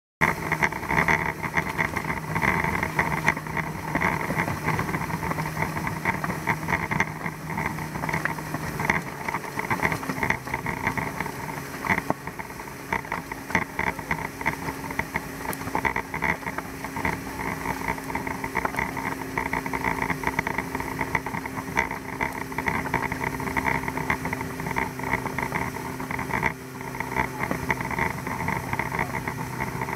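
Mercury 115 hp four-stroke outboard running at speed, pushing a 19 ft boat, over the steady rush of the wake. The engine note shifts to a higher pitch about nine seconds in.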